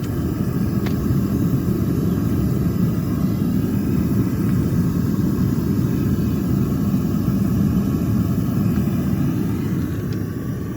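Propane venturi burner firing steadily into a melting furnace, a continuous low rushing rumble with no breaks, as it heats a crucible of copper.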